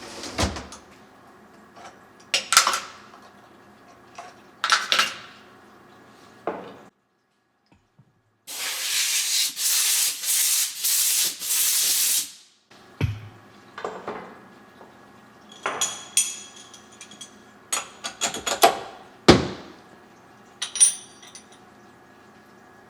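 Brass parts and tools clinking and clattering against metal as the finished divot tools are unclamped and lifted out of the vise's soft jaws. A loud hiss of compressed air blows for about four seconds in the middle.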